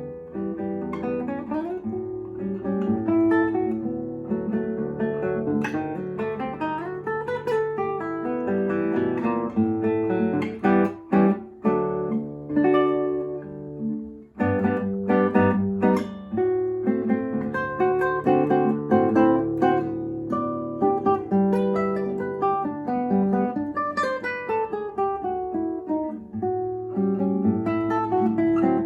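Solo acoustic guitar playing a fingerpicked Brazilian choro piece, with bass notes under melody and chords and a brief break about fourteen seconds in.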